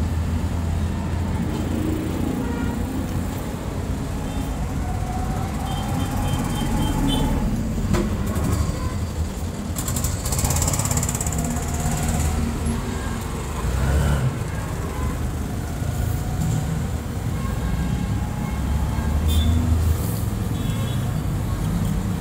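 A motor vehicle engine running with a steady low rumble.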